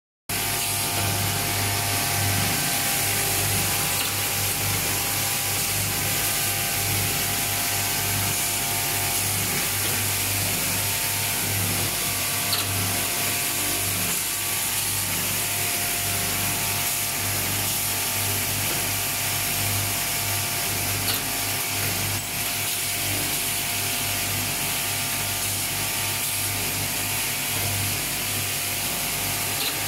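Automatic coil nail welding machine running steadily, welding nails onto wire and winding them into coils: a continuous mechanical noise over a steady low hum, with a couple of sharp clicks partway through.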